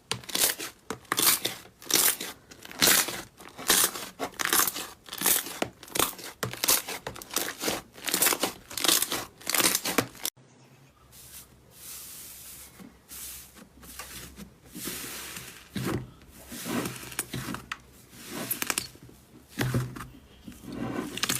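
Slime being worked by hand, making sharp sticky presses about twice a second. After a cut about halfway through, these give way to softer, irregular squishing.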